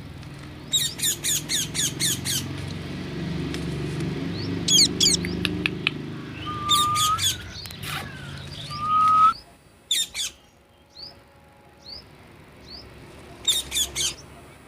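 A parrot calling in several bouts of rapid, sharp, high squawks, with two short whistled notes near the middle. A low background rumble under the calls cuts off about nine seconds in.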